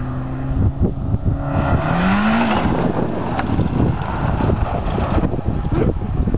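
Old sedan's engine revving hard as the car slides across loose dirt. The engine note rises and falls about two seconds in, then gives way to a dense, rough rumble.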